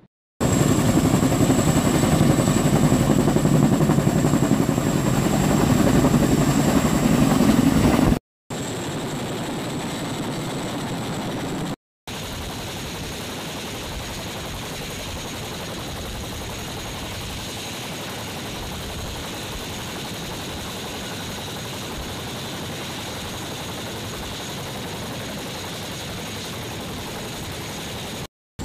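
CH-47 Chinook tandem-rotor helicopter running on the ground, its twin turbines giving a steady high whine over the rotor noise. The sound cuts out briefly twice.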